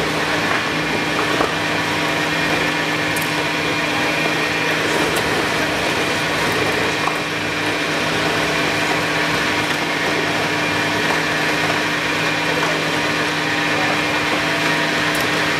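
EPS hot melting machine running while it extrudes melted polystyrene foam from its die: a steady machine drone with a constant hum.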